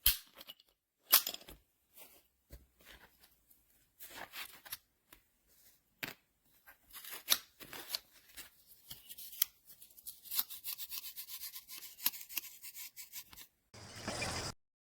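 Clicks, taps and scraping of metal tool parts being handled: scattered sharp clicks at first, then a denser run of rasping scrapes, ending with a short louder rustle.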